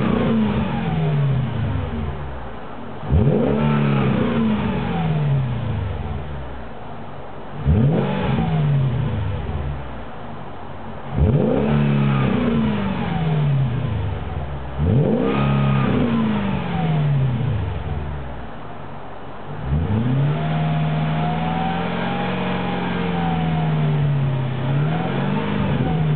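Mercedes E500 V8 with a Meisterschaft GT aftermarket exhaust, free-revved while standing: four sharp blips about every four seconds, each falling back to idle, then a rev held for about four seconds near the end before it drops and blips once more.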